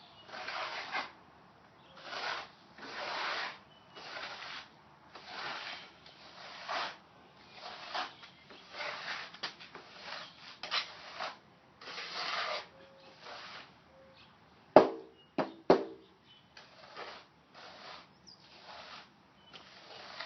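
A trowel scraping grout across a board in repeated strokes, about one a second. About halfway through there are three sharp, ringing clinks of the tool.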